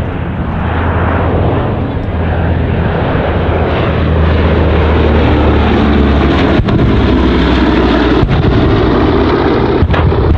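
Boeing B-17 Flying Fortress's four radial piston engines droning loudly on a low pass, growing louder about halfway through. A few sharp bangs from ground pyrotechnic explosions cut in during the second half.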